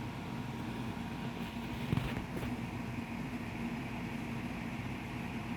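Steady low hum of a running fan, with one soft click about two seconds in.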